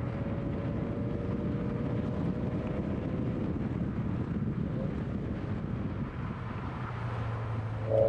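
2013 Scion FR-S's 2.0-litre flat-four engine running under way, mixed with steady tyre and wind noise on an outside-mounted microphone. Near the end the engine suddenly gets louder.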